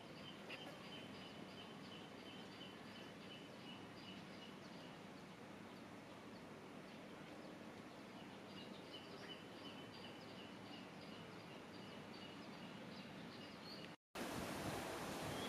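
Faint outdoor ambience with a high-pitched call repeating about four times a second, in two runs with a pause between. Near the end the sound cuts out briefly, then the background comes back louder with a short rising chirp.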